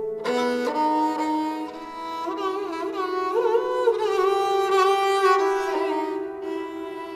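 Sarangi played with the bow: a slow Hindustani melodic line that slides between notes with quick ornamental turns over a steady held note, fading near the end.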